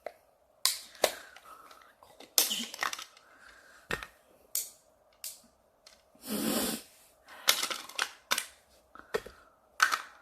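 Hard plastic clicks and knocks from a GoPro clip and mount being handled and snapped together, coming irregularly about a dozen times, with a longer rustling scrape a little past halfway.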